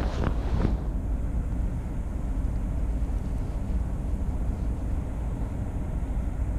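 Steady low rumble of wind buffeting the microphone, with a brief rustle in the first second.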